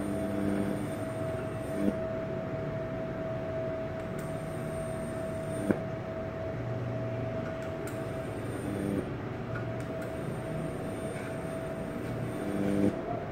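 Gasless flux-core MIG welding with an inverter MIG welder: a steady hiss over a steady whine. Short hums start and stop a few times, and there are a few sharp clicks.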